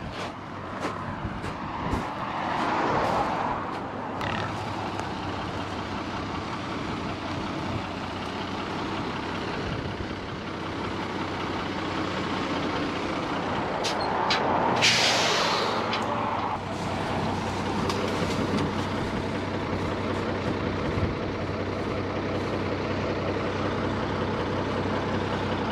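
A 5-ton 6x6 military cargo truck's engine running as the truck pulls up on gravel and stops, with one loud burst of air-brake hiss about halfway through.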